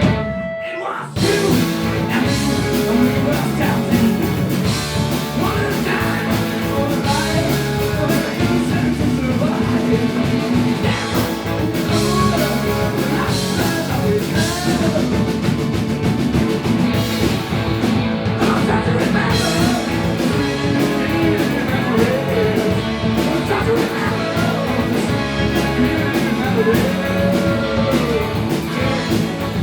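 Live rock band playing, with electric guitar and drum kit under a sung lead vocal. The band drops out for about a second at the start, then comes straight back in.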